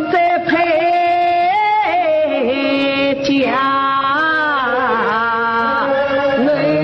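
Yue opera singing: a woman's voice draws out a sung line in long, gliding, wavering notes over the instrumental accompaniment.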